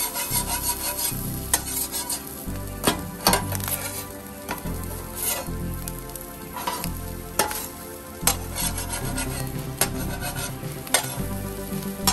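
Metal spatula scraping and tapping against the steel cooktop of a Blaze flat-top griddle, in irregular sharp clicks and scrapes, over the steady sizzle of an egg omelette frying.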